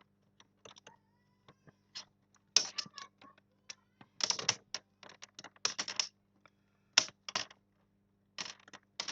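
Plastic clicks and short scrapes from a Dell laptop's screen bezel being handled and pressed into place, coming in irregular clusters of sharp taps.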